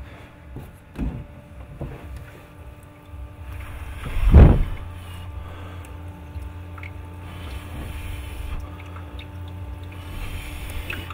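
Ultrasonic fogponics system running: a steady low hum with a faint watery hiss, and one loud thump about four seconds in.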